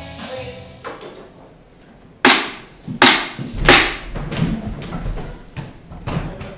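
A series of sharp cracks or bangs: three loud ones about a second apart, then several softer knocks. Music fades out just before them.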